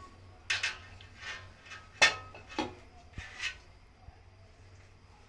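Kitchen knife knocking and scraping against a metal baking tray while cutting a cake: a few sharp clinks, the loudest about two seconds in, going quiet after about four seconds.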